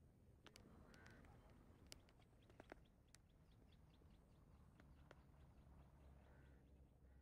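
Near silence: faint outdoor ambience with faint bird calls, including a quick run of short high chirps in the middle, and a few faint clicks early on.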